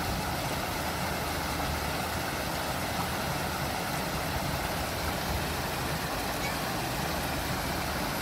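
Steady rushing of flowing water in a landscaped garden water feature, with a low rumble beneath and no change throughout.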